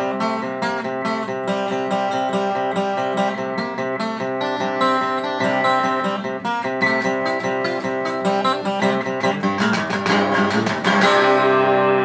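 Acoustic guitar music played live: rhythmic picked and strummed chords, then a burst of rapid strumming near the end that lands on a sustained chord ringing out, the close of the piece.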